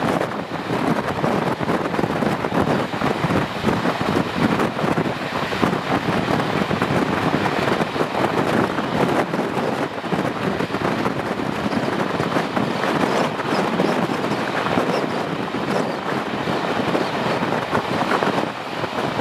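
Steam-hauled passenger train hauled by class 01 locomotive 01 202, running steadily and heard at an open coach window: wheels running on the rails, with wind rushing over the microphone.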